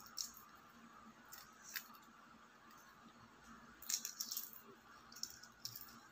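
Shell being peeled by fingers off a hard-boiled quail egg: faint, scattered crackles and clicks of the thin shell cracking and coming away, with a busier cluster about four seconds in.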